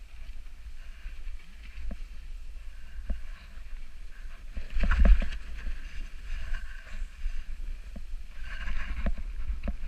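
Snowboard sliding and turning down a snowy slope, the board scraping and hissing over the snow, with the wind of riding rumbling on the microphone. A louder scrape comes about halfway through, with a few light knocks scattered around it.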